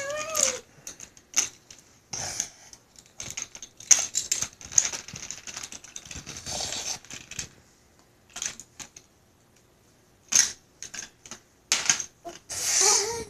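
Plastic toy trains and pieces being handled, giving irregular clicks and knocks, with a couple of short scraping stretches.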